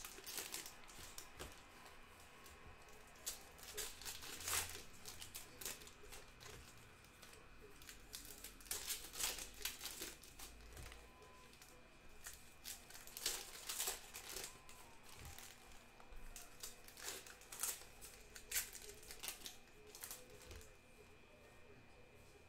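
Foil trading-card pack wrappers (2021 Panini Donruss Football) crinkling and being torn open, in irregular quiet bursts of crackle.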